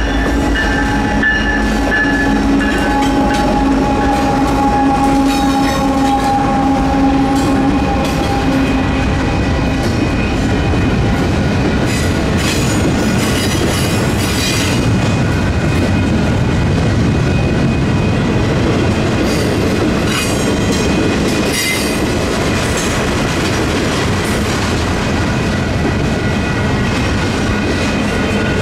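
Union Pacific double-stack intermodal freight train passing over a street grade crossing. The lead diesel locomotives' engine tone sags slightly in pitch and fades out within the first third, then the stack cars rumble and clatter over the rails with brief wheel squeals midway. Electronic crossing bells ring steadily.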